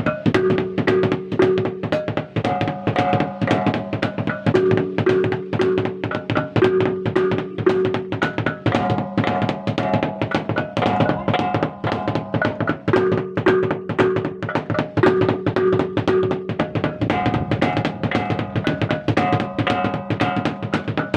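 East Flores gendang drums and gongs playing for a customary ritual: rapid, steady drum strokes under interlocking repeating gong notes, with a low group of three gong notes recurring every few seconds.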